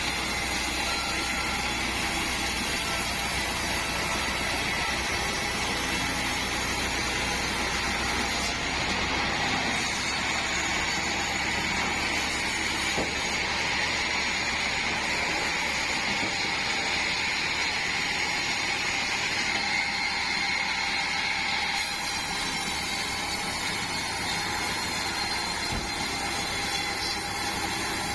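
Band sawmill running with a steady mechanical drone and a high whine, shifting slightly in tone about three-quarters of the way through.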